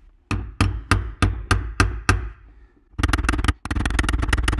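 Hammer tapping a long metal punch against the fuel pump's lock ring to turn it tight in the tank opening. Seven evenly spaced sharp taps, about three a second, then quicker rapid tapping from about three seconds in.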